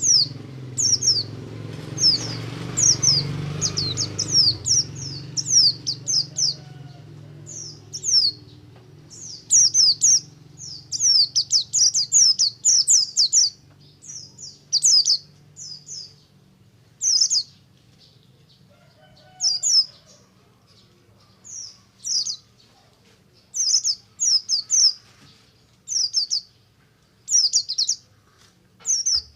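Buxtoni white-eye (pleci) singing in its 'ngalas' style: rapid runs of short, high, falling chirps in clusters of a few notes, separated by brief pauses.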